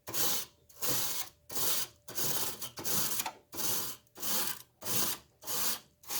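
A coil brush scrubbing the aluminium fins of a window air conditioner's evaporator coil in quick back-and-forth strokes, about two a second, loosening dust from the coil.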